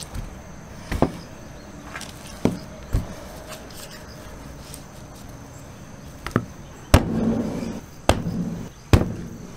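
Sharp knocks and thuds from butchering raw bone-in beef ribeye: a long knife and the meat striking a plastic cutting board, about eight irregular hits, with a busier stretch of handling noise near the end.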